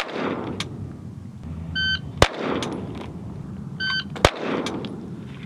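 Electronic shot-timer beeps, each followed about a third of a second later by a single loud pistol shot that echoes away: shots at the start, about two seconds in and about four seconds in. This is a reaction drill, the trigger pressed the instant the beep sounds. Fainter cracks come between the loud shots.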